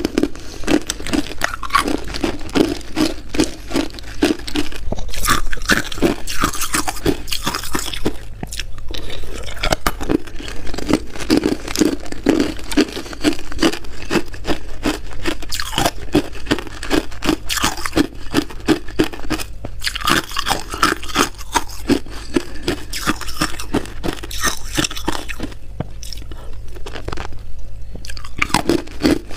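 Hard ice being chewed right at a lapel microphone: loud, rapid crunching of the ice breaking between the teeth, with a couple of brief pauses.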